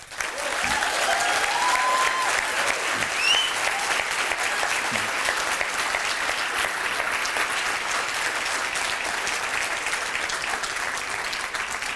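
A large audience applauding steadily; the applause begins suddenly and eases slightly toward the end. A few rising calls from the crowd rise above it in the first few seconds.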